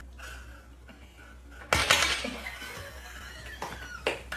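Dominoes clattering as a kitten knocks them over: a sudden rattle of tiles falling against each other that trails off over about a second, then a few smaller knocks near the end.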